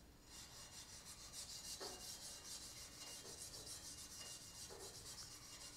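Maroon Scotch-Brite pad scrubbing a rusty steel square tube wet with phosphoric acid metal prep: faint, quick back-and-forth scratching, several strokes a second, starting a moment in.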